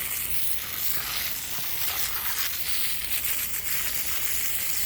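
Garden hose spray hissing steadily against a rain barrel's mesh screen, washing off grit from the roof.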